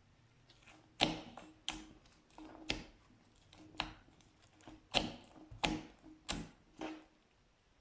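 Slime being pressed and worked by hand, giving a series of sharp wet pops and clicks, about one every two-thirds of a second. They start about a second in and stop shortly before the end.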